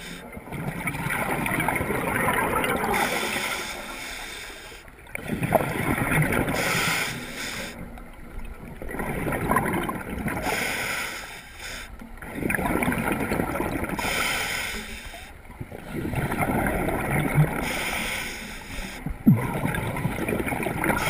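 Scuba diver breathing through a regulator underwater: a rush of exhaled bubbles about every four seconds, with quieter pauses between breaths.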